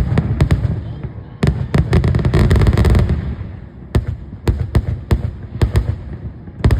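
Fireworks going off: a rapid series of sharp bangs and cracks, with a denser rumbling stretch from about one and a half to three and a half seconds in.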